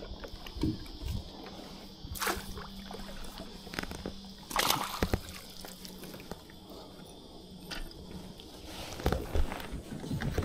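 Water sloshing and splashing beside a kayak as a hooked bream is played at the surface and scooped into a landing net, with a few louder splashes, the biggest about four and a half seconds in and near the end.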